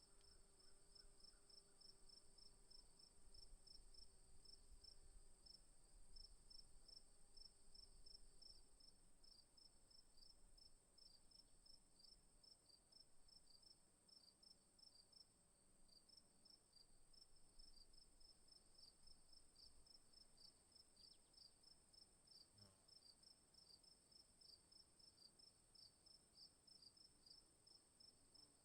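Faint insects chirping: a steady high trill with a quick, evenly pulsing chirp beneath it, about four pulses a second.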